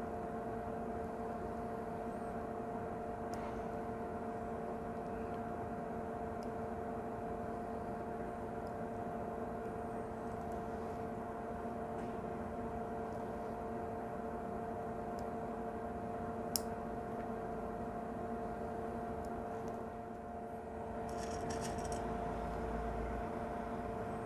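Steady electrical hum with a whir, holding two or three fixed tones, broken by a single short click about two-thirds of the way through.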